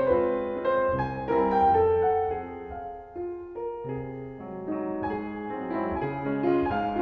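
Background piano music: a slow melody of held notes that grows softer about three seconds in, then picks up again.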